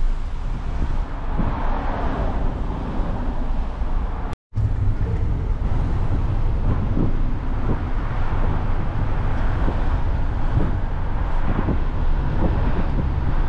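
A moving car's steady road and engine noise, a low rumble with a hiss over it, with a sudden brief silent break about four and a half seconds in.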